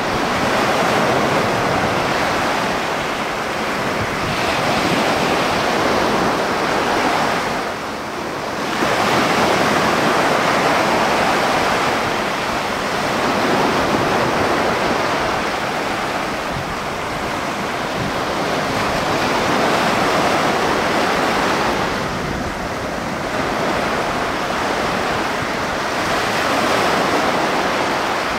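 Sea surf breaking and washing on the shore in a continuous rush that swells and eases every few seconds, with wind buffeting the microphone.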